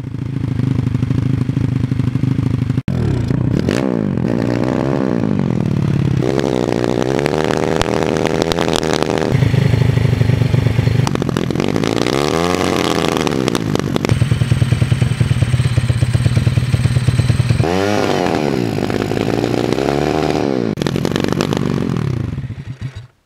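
YCF 150 pit bike's single-cylinder four-stroke engine running and being revved up and back down several times, settling back to a steady idle between the revs.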